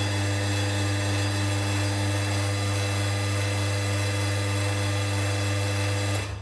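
Espresso machine's water pump running with a steady, loud hum as it fills the boiler, cutting off suddenly about six seconds in.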